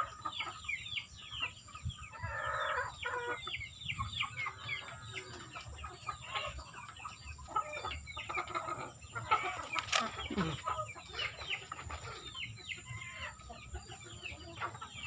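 Chickens calling: a dense, continuous stream of short falling peeps and clucks, with one longer call about two and a half seconds in. A single sharp click about ten seconds in.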